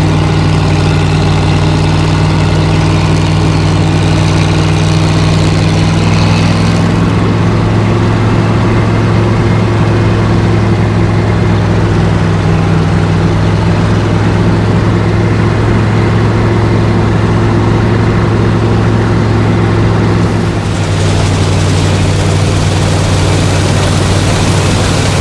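Heavy farm machine engine running steadily at an even speed, with a low hum. The higher hiss above it drops away about seven seconds in and comes back near the end.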